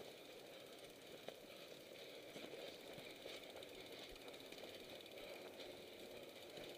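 Faint, fast, steady ticking and light rattling from a mountain bike being pushed on foot through snow, its rear-hub freewheel clicking as the wheel rolls, with a few soft knocks.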